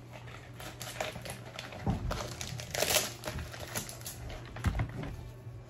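Crinkling and rustling of a metallic bubble mailer being handled. Two dull bumps come about two seconds in and near the end.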